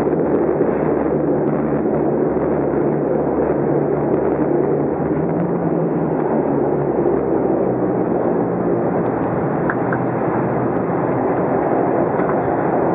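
Steady cabin noise of an ATR 72 turboprop rolling on the ground after landing: an even rumble from the engines and propellers.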